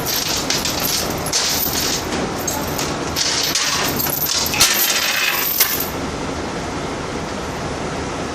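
Metal clinking and rattling over steady heavy machine noise, stopping about six seconds in, leaving only the machine noise, during heavy lifting and loading work.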